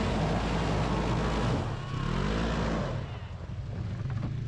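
Side-by-side UTV engine revving, its pitch rising and falling twice, then easing off to a steadier, quieter drone about three seconds in.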